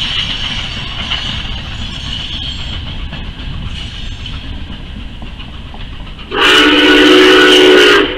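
Steam whistle of Nickel Plate Road 765 blowing one loud, steady chord of about two seconds, starting about six seconds in and cutting off sharply near the end. Before the blast there is a steady rumble and hiss.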